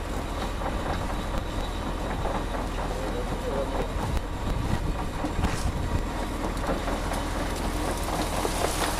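Fishing boat's engine running with a steady low rumble, with knocks and rattles from the loaded trawl net being worked on the steel deck. Near the end the catch begins to spill out of the net onto the deck with a rising hiss.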